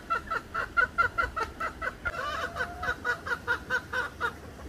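A hen cackling: a quick run of short clucks at about five a second, with one longer rising call about two seconds in, stopping near the end.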